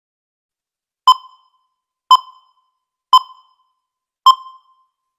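A short electronic ping, repeated four times about a second apart, each a clear tone that dies away quickly.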